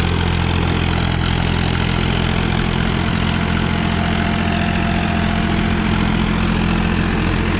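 Powertrac Euro 50 tractor's diesel engine running steadily at a constant pitch while it drives an 8-foot rotavator tilling soil. The 50 hp tractor runs light and unstrained under this load.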